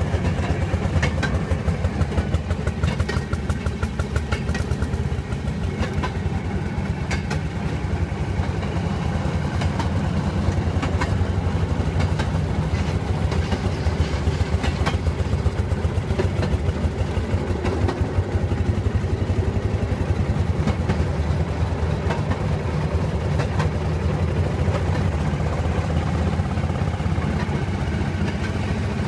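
Fairmont M19 railroad speeder running steadily down the track at speed, its engine firing in a fast, even beat, heard from inside the cab, with occasional sharp clicks from the wheels on the rails.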